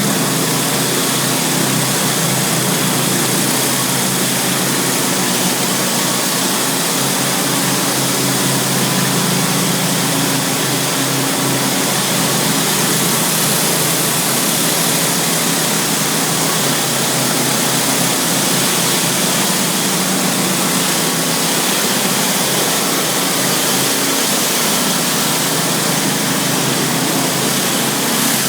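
Pressure washer running steadily, its engine and high-pressure water spray on concrete making a constant, unbroken noise.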